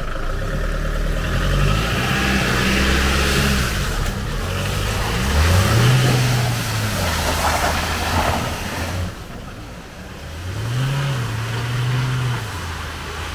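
Chevrolet pickup truck's engine revving in three surges as its wheels spin and churn through mud, with the hiss and spatter of mud and water thrown from the tyres.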